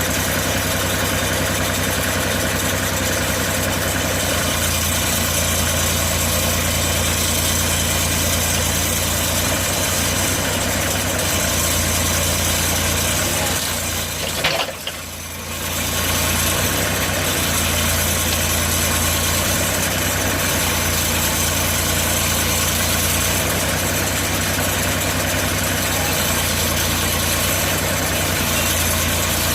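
An engine running steadily at a low, even speed, with a brief break and click about halfway through before the same sound carries on.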